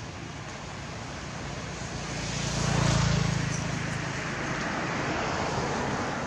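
A motor vehicle passing by: engine and road noise swell to a peak about three seconds in, then slowly fade.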